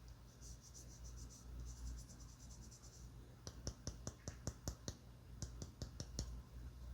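Keyboard fitted with soft silicone jelly keycaps being pressed: two quick runs of light, rapid clicks, then from about halfway two bursts of louder, deeper key strokes.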